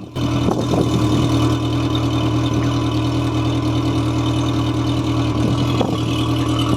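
Mercury 90 hp four-stroke carbureted outboard engine idling steadily.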